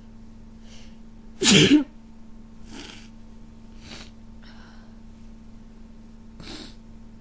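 One loud sneeze about a second and a half in, from a person with a cold, with fainter breathy sniffs and breaths before and after it.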